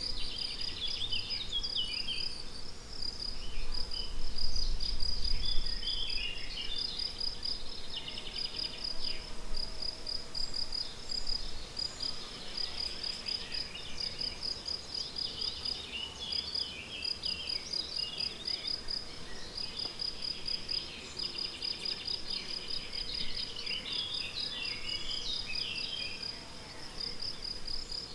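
Crickets chirping in a steady, rapid, even pulse, with songbirds singing short warbling phrases over them. A brief low rumble swells about four seconds in.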